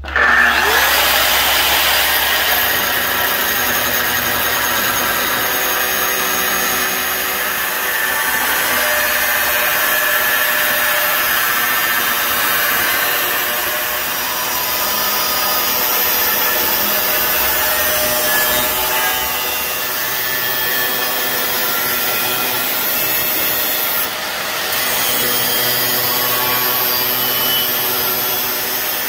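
Angle grinder with a thin cut-off disc cutting through a steel circular saw blade: a loud, steady grinding that starts abruptly.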